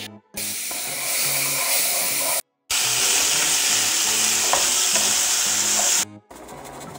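Beef chunks and potato cubes frying in a pan, a loud steady sizzle. It breaks off briefly about two and a half seconds in and stops about a second before the end.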